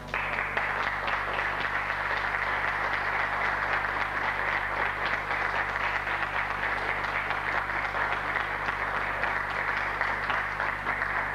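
Audience applauding steadily. The applause starts suddenly and runs over a faint low electrical hum.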